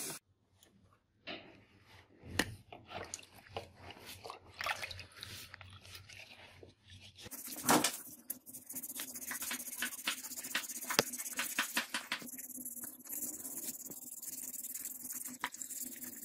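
A steel knife blade being scrubbed by hand with a dish sponge over a bowl of water: wet rubbing with scattered light clicks and knocks. It is almost silent at first and busier and louder from about halfway.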